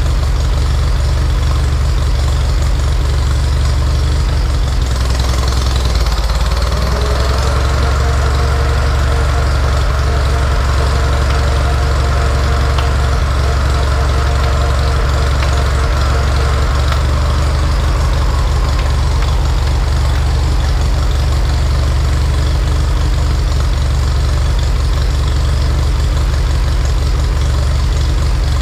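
Ferguson TED20 tractor's four-cylinder engine idling steadily. About six seconds in the PTO-driven saw bench runs up: the circular saw blade and its flat belt add a rising whine that holds steady until about seventeen seconds, then fades as it runs down.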